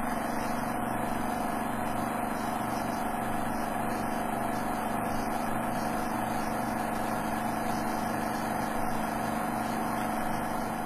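A steady mechanical whirr with a low hum, even in level throughout.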